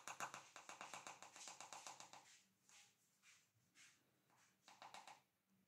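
Faint rapid ticking and scraping, about ten ticks a second for roughly two seconds, from a spoon scooping bicarbonate of soda out of its tub, followed by a few scattered light taps.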